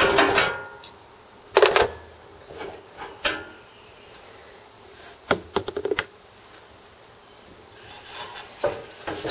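A few separate clicks and knocks of a socket wrench and metal parts being handled, with a quick run of clicks near the middle.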